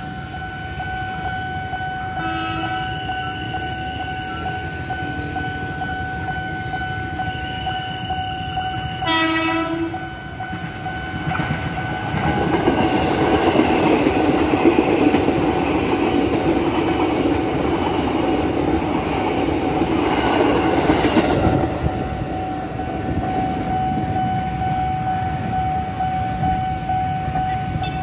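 A KRL Commuter Line electric train of the ex-JR 205 series sounds its horn, a short toot and then a longer blast about nine seconds in, and runs past. The passing train is a loud rumble of wheels and motors for about ten seconds before it eases off. A level-crossing warning signal sounds as one steady high tone throughout.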